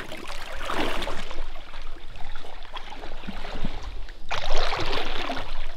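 Shallow river water splashing and sloshing around a wader's legs as he moves through the stream, in two louder surges, one about a second in and one near the end.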